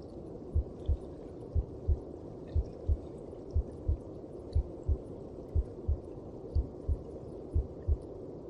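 A mother's heartbeat as heard from inside the womb: muffled lub-dub pairs of low thumps, about one pair a second, over a steady rushing noise.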